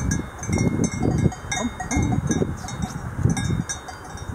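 A cowbell on a young cow's neck strap clanking irregularly as the cow moves its head, with uneven low rumbling noise underneath.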